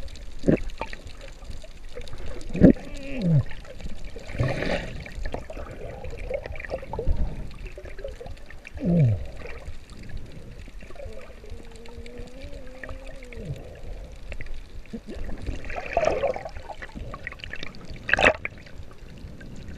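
Water heard underwater by a camera in its waterproof housing: muffled sloshing and gurgling with scattered knocks and short falling swooshes. A wavering tone sounds for a couple of seconds midway, and a sharp splash-like burst comes near the end as the camera nears the surface.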